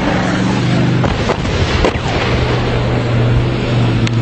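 A steady, engine-like hum under loud rough wind noise on the microphone, with a few sharp cracks.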